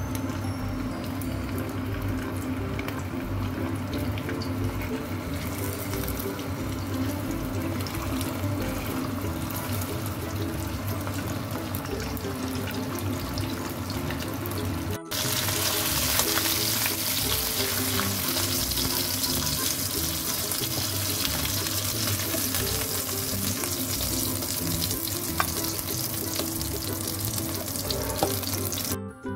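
Whole fish frying in hot oil in a nonstick wok: a steady sizzle, louder and hissier after about halfway. Light background music plays underneath.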